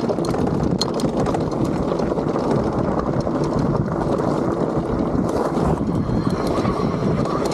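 Wind rushing over the microphone while the bike's tyres roll over a rocky trail, with scattered clicks and knocks from stones and the bike rattling.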